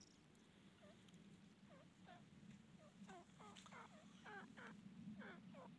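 Francolin (teetar) calling: a run of short notes, each falling in pitch, that start sparse and quicken to about three a second as they grow louder, over a low steady hum.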